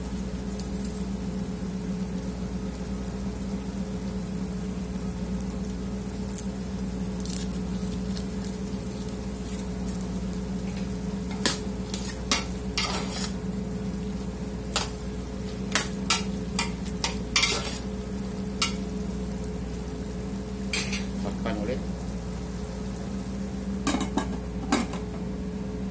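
Beef cubes sizzling in a large aluminium pot while a slotted metal spatula stirs them, clinking and scraping against the pot several times in the middle and again near the end. A steady low machine hum runs underneath.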